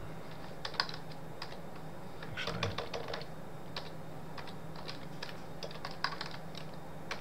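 Typing on a computer keyboard: irregularly spaced keystrokes, with a quick run of several about two and a half seconds in.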